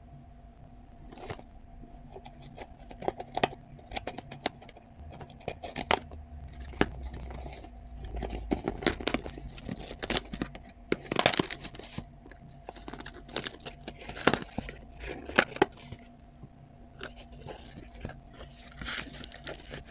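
Hands handling a smartphone's cardboard retail box: irregular taps, clicks and scrapes with some tearing of packaging, over a faint steady hum.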